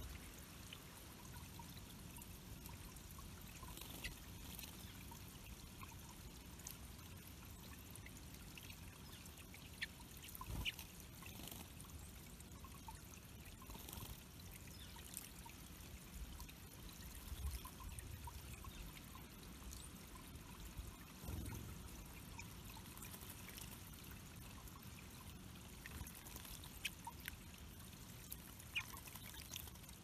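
Water trickling steadily over the stones of a small bird-pond waterfall, faint and even, with a few brief ticks here and there.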